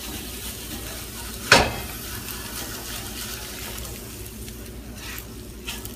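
Fried potato chunks tipped out of a cast iron sauté pan and tumbling into a cast iron skillet, over a steady hiss. A single sharp knock about a second and a half in is the loudest sound, with two lighter knocks near the end.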